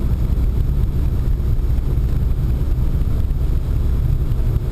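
Steady low rumble of road and engine noise heard inside the cabin of a moving Pontiac Sunfire.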